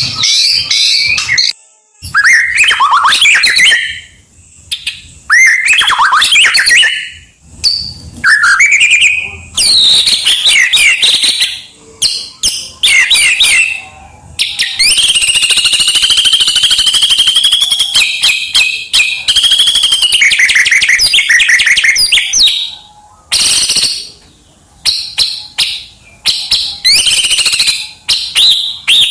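White-rumped shama (murai batu) singing loudly: a run of varied whistled and chattering phrases split by short pauses, with one long, rapid, unbroken phrase through the middle. This is the bird's full, mimicry-filled ('isian') song.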